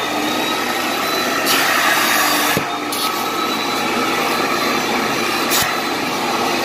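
Carpet extractor's upholstery tool sucking air and rinse water out of a fabric sofa cushion as it is pulled across: a steady suction roar with a thin high motor whine, and a couple of light clicks.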